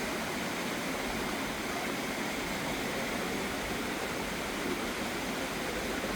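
Waterfall: falling water making a steady, even rush with no breaks.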